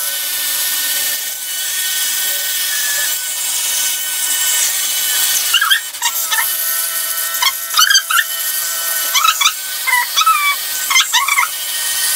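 A small electric motor running with a steady buzz and hiss. From about halfway through, a young child's short, high whines rise and fall over it several times.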